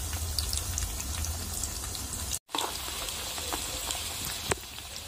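Batter-coated bitter gourds (karela) sizzling and crackling in hot oil in a frying pan as they are turned with a spoon. The sound drops out for an instant midway, and there is one sharp tap of the spoon against the pan near the end.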